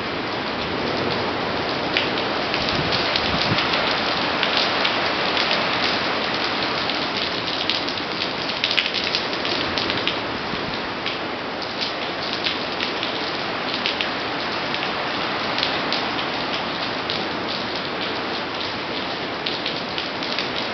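Hurricane winds driving heavy rain: a dense, steady rush of rain over wet ground, dotted with many sharp drop and splash ticks, swelling a little in the first half.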